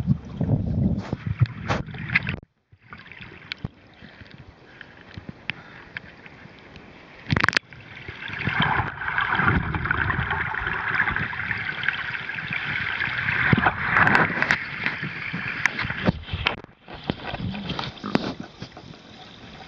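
Muffled underwater noise of pool water rushing and gurgling past a waterproof compact camera as a swimmer moves along the bottom. There is a sharp click about seven and a half seconds in, and the rushing gets louder and brighter through the middle, with scattered small clicks.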